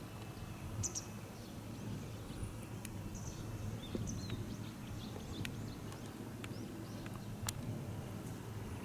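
Steady low background rumble with scattered faint bird chirps and a few faint, irregular clicks.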